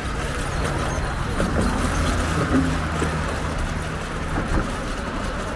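Steady, noisy street din with a low engine hum, as of vehicles running nearby on the road.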